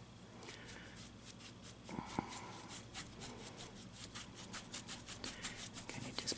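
Paintbrush dabbing and scrubbing acrylic paint onto a canvas, quick repeated bristle strokes, several a second.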